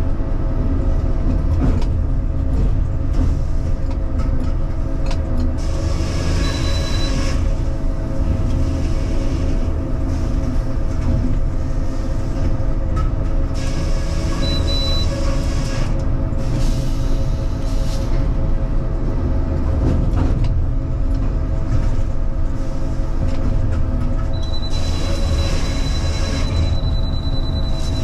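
Sawmill in operation, heard from inside the carriage operator's cab: a Cleerman log carriage runs a log back and forth past a circular headsaw over a steady low rumble and hum. Several times a louder, brighter hiss with a thin high whine comes in and dies away as the saw cuts a board off the log.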